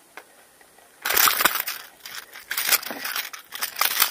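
A hooked pike thrashing on a wobbler as it is being unhooked beside an inflatable boat: bursts of rough, scrabbling noise starting about a second in, a short lull, then more bursts.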